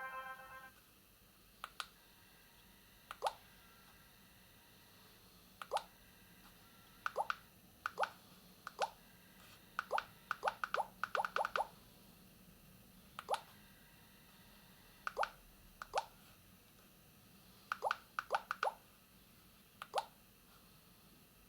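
Short falling 'plop' key tones from a CAT B26 mobile phone, one for each button press while stepping through its menu. About twenty come at irregular intervals, several of them in quick runs.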